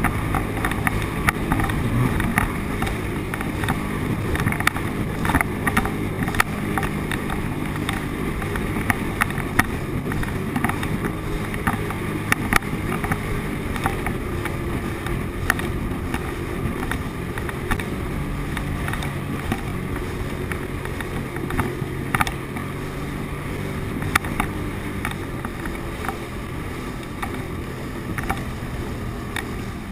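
Sea-Doo personal watercraft's engine running steadily at speed, with frequent sharp knocks as the hull slaps across the chop.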